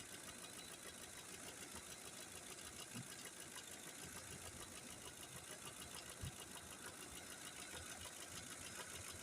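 Lincoln 5.4-litre V8 idling steadily with one cylinder disabled, part of a cylinder-drop test to find a misfire. There is a faint click about six seconds in.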